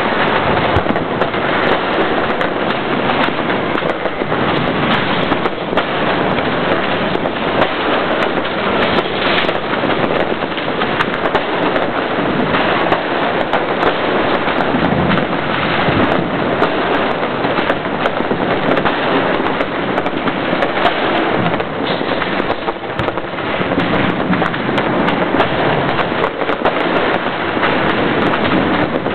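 Many fireworks and firecrackers going off at once, a dense, unbroken crackle of bangs.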